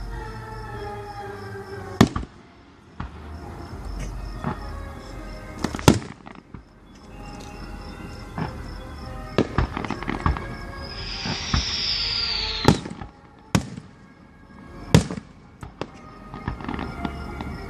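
Fireworks display: aerial shells bursting with sharp booms every few seconds, about six in all, with a crackling, hissing burst and a falling whistle a little past the middle.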